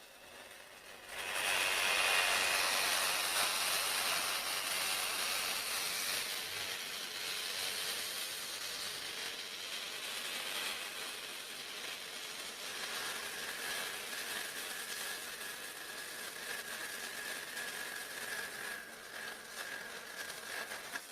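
Reciprocating saw cutting through pallet wood, starting about a second in and running steadily, with a high steady whine joining about halfway through.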